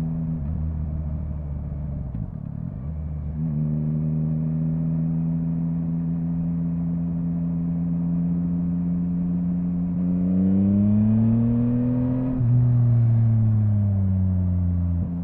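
Yamaha MT-09's three-cylinder engine running under way, heard from the rider's position. It holds a steady pitch for several seconds, rises as the bike accelerates about ten seconds in, breaks off sharply a couple of seconds later, then slowly falls in pitch before dropping near the end.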